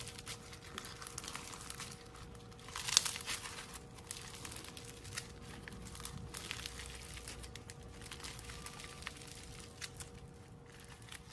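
Slime being squeezed and worked by hand, with many small crackling clicks and pops and a louder crackling squelch about three seconds in.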